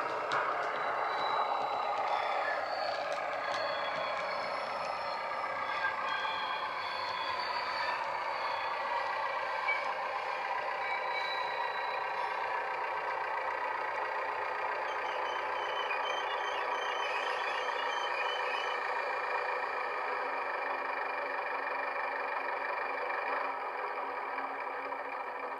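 LokSound 5 DCC sound decoder in a Heljan OO gauge AEC railcar model, playing the railcar's diesel engine sound through the model's speaker. The engine note falls in pitch over the first few seconds, then runs steadily as the model moves along the track.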